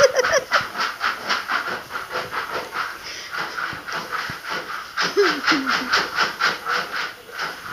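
Puppy chow (coated cereal pieces) rattling inside a lidded plastic bowl that is being shaken rhythmically, about four to five shakes a second, tossing the cereal in its coating.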